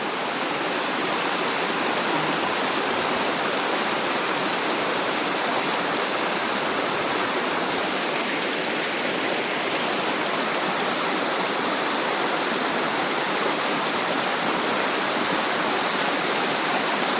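Small waterfall on a mountain stream, falling water making a steady rushing noise.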